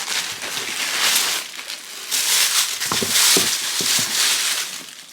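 Packaging wrapping rustling and crinkling as it is handled and pulled open, with a few soft knocks about three seconds in.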